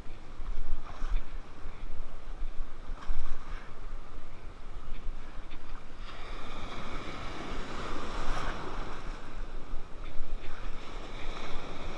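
Surf washing and breaking around the angler's legs, with wind buffeting the microphone. A wave swells up and washes in about halfway through.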